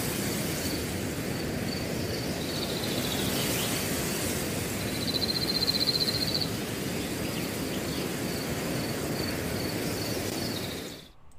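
Outdoor prairie ambience: a steady rushing noise with insects chirring in a high, pulsing tone. A fast high trill comes about five seconds in. It all fades out near the end.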